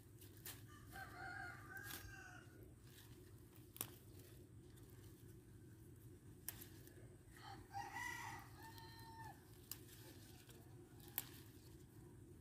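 A rooster crowing faintly, twice: about a second in and again just past halfway. A few sharp clicks in between.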